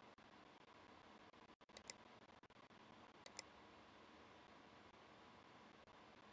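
Near silence with faint room hiss, broken by two quiet double clicks, about two seconds in and again a second and a half later.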